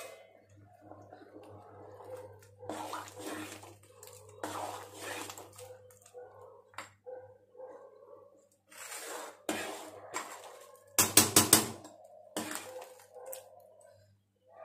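Thick sambar bubbling and sloshing in an aluminium pot as a metal spoon stirs it, with a quick run of loud spoon clinks against the pot about two-thirds of the way through.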